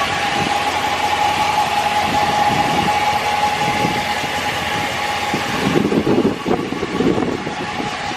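Wind buffeting the microphone in irregular gusts, strongest near the end, over the steady running of a 2015 Ram 1500's 5.7 L Hemi V8 at idle.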